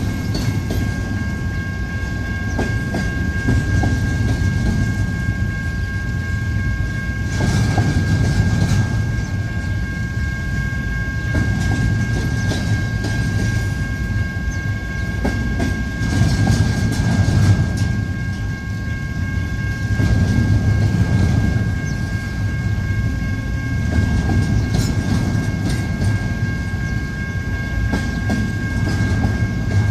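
Intermodal freight train rolling past: a steady rumble of wheels on rail with clickety-clack, swelling every four seconds or so as cars go by. A faint steady high-pitched ring sits above it.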